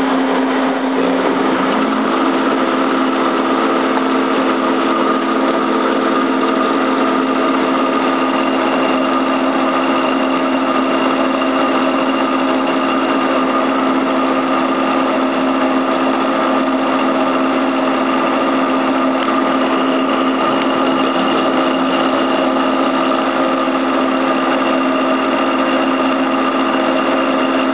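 Fanuc 10S AC servo motor spinning steadily under its brushless drive at about 1,600 rpm, a constant hum with several steady tones.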